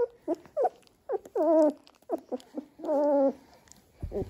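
23-day-old Dalmatian puppies whining and squeaking: a string of short squeaks and two longer, wavering whines. Near the end comes a low rumble of handling noise on the microphone.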